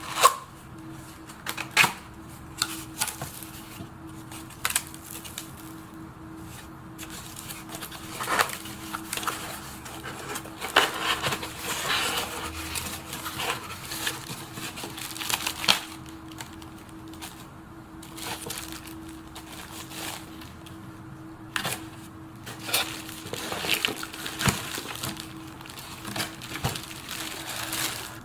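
Scattered clicks, knocks and rustling of things being handled, over a steady low hum.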